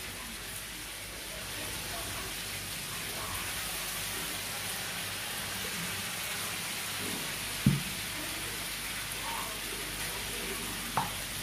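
A steady sizzling hiss, with lemon juice dribbling from a plastic citrus juicer into a clay mortar of chopped salad. Two sharp knocks come through it, the louder about seven and a half seconds in and a smaller one near the end.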